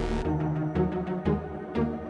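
Background music with dark, dramatic synth and drum hits.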